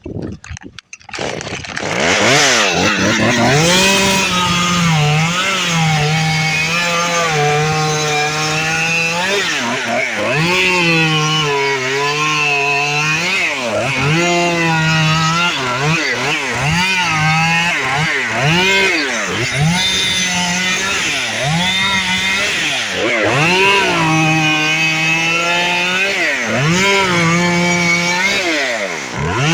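Chainsaw starting up about two seconds in, then revving up and dropping back again and again as it cuts the old frond bases from the bottom of a cabbage palm's crown.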